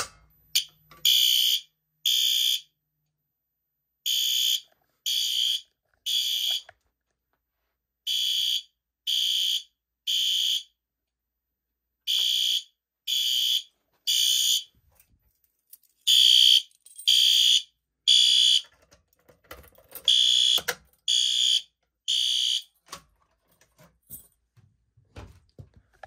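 Wall-mounted fire alarm horn strobe sounding after a manual pull station is pulled. The horn is high-pitched and loud, in the temporal-three evacuation pattern: three short blasts, a pause, repeated six times, then it stops.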